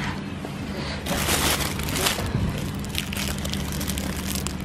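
Plastic produce bags crinkling and rustling as a bagged eggplant is picked up and handled, loudest about a second in, over a steady low hum.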